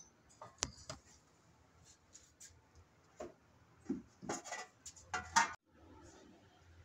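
Light taps, clicks and rubbing of fingers picking carrot slices up off a ceramic plate, a few sharper taps about four to five and a half seconds in.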